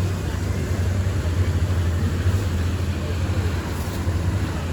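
A boat's engine running steadily, a low drone.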